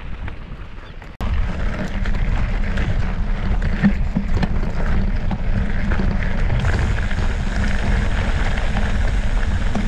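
Wind rumbling on the microphone of a moving bicycle, mixed with the rolling noise of tyres on a dirt road. About a second in the sound cuts out for an instant and comes back louder and steady.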